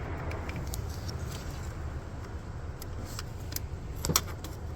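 Small metallic clicks and clinks of hand-work fitting a gearshift cable end and its lock, with a sharper click about four seconds in, over a steady low hum.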